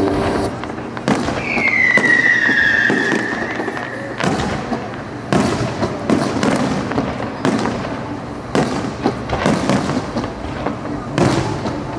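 Aerial fireworks display: a steady run of bangs and crackles as shells burst overhead. One falling whistle starts about a second in and lasts about two seconds.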